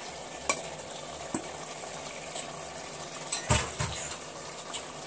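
Raw chicken pieces being tipped from a steel bowl into a pressure cooker of hot masala and dal, with scattered metal clinks against the pot and one heavier knock about three and a half seconds in. A steady low sizzle of the masala runs underneath.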